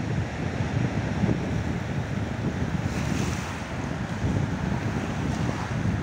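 Small sea waves washing up onto a beach of crushed shells and pebbles, with wind buffeting the microphone; a brighter hiss of wash comes about halfway through.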